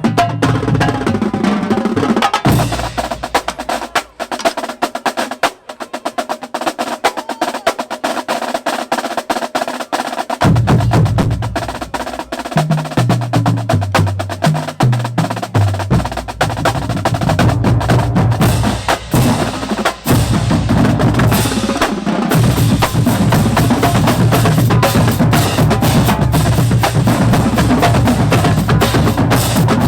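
Marching band drumline playing a fast cadence of rapid snare and tenor drum strokes. The low drums drop out for several seconds, then come back about ten seconds in with a run of stepped low notes. From about halfway through, the full line plays together.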